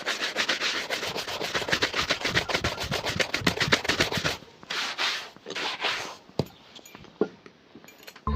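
A shoe being buffed with quick back-and-forth strokes, about nine a second, for four or five seconds. Then come three slower, longer swishes and a few light taps.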